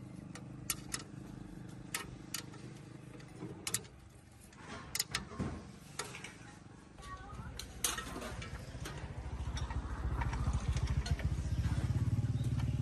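Scattered sharp clicks and knocks, then a small engine running with a rapid low throb that grows steadily louder over the second half.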